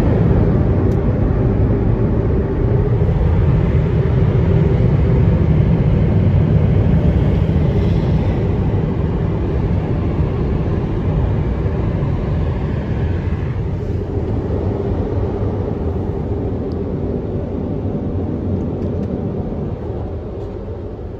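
International Drying Corp car wash dryers blowing, a loud steady rush of air heard from inside the car's cabin, fading gradually over the second half as the car moves away from them.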